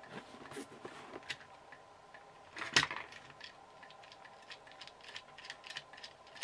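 Handling noise from a small plastic toy car chassis and its box: scattered light clicks and taps, with one louder clatter a little under three seconds in, over a faint steady hum.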